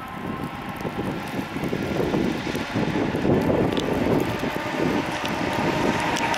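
MÁV class V43 electric locomotive accelerating with a passenger train, a steady electrical hum growing louder as it draws near, with gusty wind noise on the microphone.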